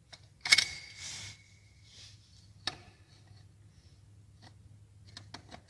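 Steel dial-gauge tripod stand being set onto a steel CBR mould: one sharp metal clink about half a second in that rings for over a second, another clink a couple of seconds later, and a few light metal taps near the end.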